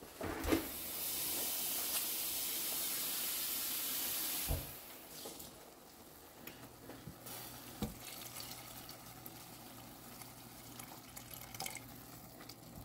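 Kitchen tap running for about three and a half seconds, filling a jug with water, then stopping. A few light knocks follow as the jug is handled, and near the end water is poured from the jug into the pot of rice.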